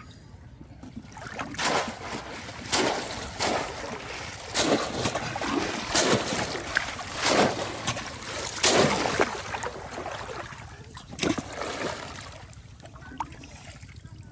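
Pond water splashing as people fish in it: a run of about ten sharp splashes, roughly one a second, easing off near the end.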